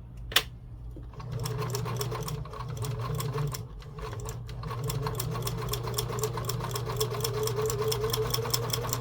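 A sharp click, then a Kenmore 158.13511 sewing machine starting up and running steadily, its needle strokes ticking rapidly and evenly as it zigzag-stitches through two layers of vinyl. The machine eases briefly a few seconds in, then runs on at a steady fast pace.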